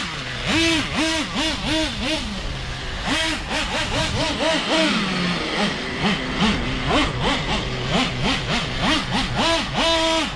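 Traxxas Revo 3.3 nitro truggy's small two-stroke glow engine revving in quick throttle blips, its pitch rising and falling about three times a second, with a smoother run near the middle.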